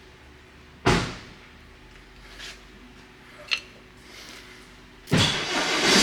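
Workshop sounds of brake work: a sharp knock about a second in, a short metallic clink a few seconds later, then a louder rough, noisy clatter starting near the end.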